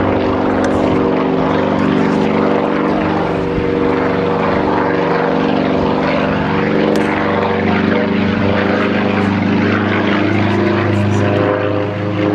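Single-engine aerobatic propeller plane flying overhead: a loud, steady engine-and-propeller drone whose pitch shifts about two-thirds of the way through as it manoeuvres.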